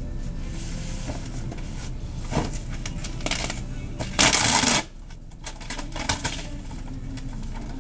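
A cardboard case of liquor bottles being handled, rustling and scraping, with one loud scrape of about half a second near the middle. A steady low hum runs underneath.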